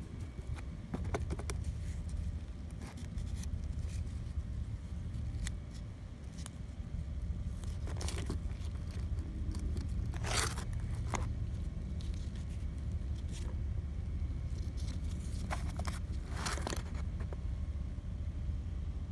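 Gloved hands handling the parts of a disassembled Detroit DD15 crankcase breather: scattered light clicks and knocks of plastic and metal parts, with two longer scrapes, about ten seconds in and again near the end. A steady low rumble runs underneath.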